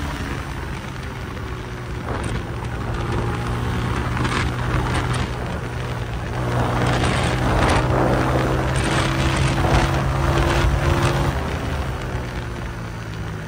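Honda CG125's single-cylinder four-stroke engine running through a Goshi aftermarket silencer under way, with a steady exhaust note. It grows louder about six seconds in, then eases back down after about eleven seconds.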